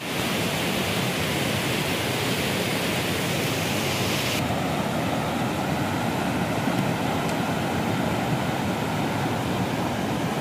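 Muddy, flood-swollen mountain river rushing over rocks: a steady, loud rush of churning water. An added high hiss runs for the first four seconds or so and then cuts off abruptly.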